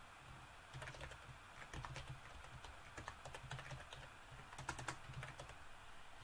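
Computer keyboard typing in several short bursts of keystrokes with brief pauses between them, fairly faint.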